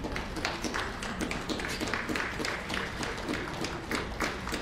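Scattered hand clapping from a small audience, starting abruptly and going on as quick, uneven claps several times a second.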